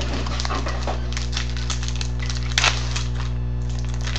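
Trading card pack wrapper crinkling and tearing as the pack is opened: a run of short crackles, with a sharper pair of snaps about two and a half seconds in. A steady low electrical hum runs underneath.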